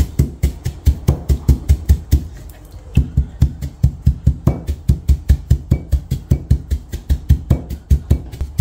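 Stone pestle pounding coriander seeds in a stone mortar: a quick, regular run of knocks about five a second, with a short pause a little over two seconds in. The seeds are being crushed coarsely, not ground to powder.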